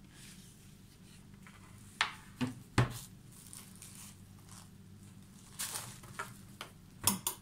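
Spoons and their wrapping being handled: a few sharp clicks and knocks about two seconds in and again near the end, with light rustling in between.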